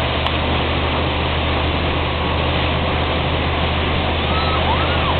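Towing motorboat's engine running steadily at speed under the continuous rush of churning wake water.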